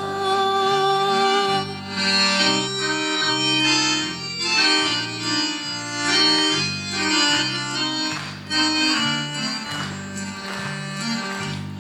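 Accordion playing an instrumental interlude between verses of a song: a melody of held notes over an even, repeating bass-and-chord accompaniment.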